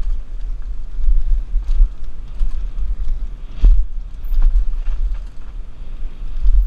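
Mongoose Pinn'r mountain bike rattling over rough trail on a downhill run, with scattered clicks and knocks and a sharper knock about halfway through. Wind buffets the helmet-mounted camera's microphone throughout.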